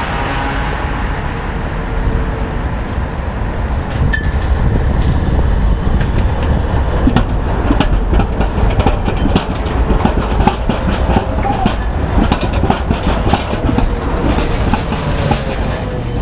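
Ganz articulated tram passing close by, a steady low rumble with its wheels clattering over the rail joints. The clatter thickens from about four seconds in, and a brief high wheel squeal comes right at the end.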